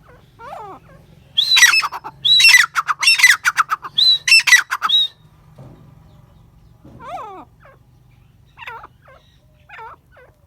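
Gray francolin calling: a loud series of shrill, rapidly repeated notes from about one and a half to five seconds in, with fainter calls before and after.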